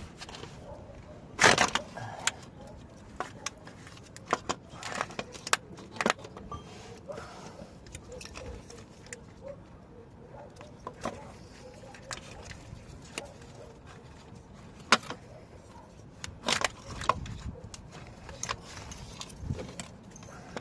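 Irregular metallic clinks and knocks of hand tools and metal parts being handled during a starter motor removal. The loudest clank comes about a second and a half in, with another cluster of knocks near the end.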